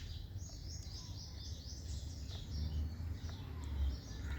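Small birds chirping in a quick repeated run of high notes, over a steady low background rumble.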